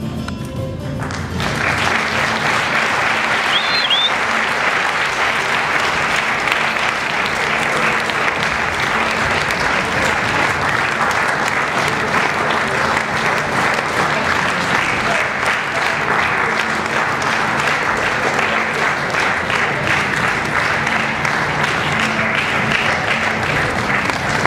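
Audience applauding steadily. It swells in about a second and a half in as the closing music ends.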